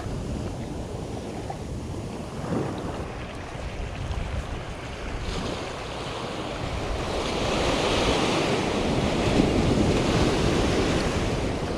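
Small ocean waves washing up the sand at the shoreline, with wind buffeting the microphone; a wave surges in louder in the second half.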